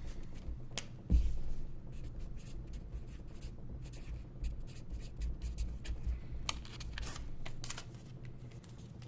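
Hands handling sealed trading-card boxes and packs on a table: light rustling, scraping and tapping, with a soft thump about a second in.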